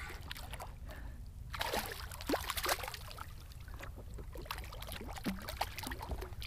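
Small splashes, plops and gurgles at the water surface beside a kayak as a hooked jack crevalle swirls close to the boat.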